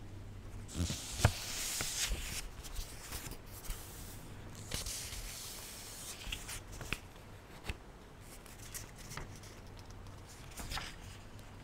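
Pages of a paperback book being turned and handled close to a microphone: papery rustles and small taps coming and going, the fullest rustle about two seconds in.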